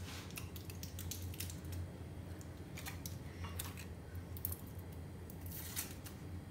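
Foil wrappers on processed-cheese portions crinkling and ticking as they are peeled open by hand, in short scattered bits, over a steady low hum.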